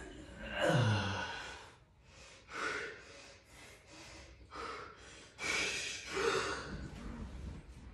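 Heavy, effortful breathing of a person lifting a barbell: a series of forceful breaths through nose and mouth, with a short low grunt that drops in pitch about a second in.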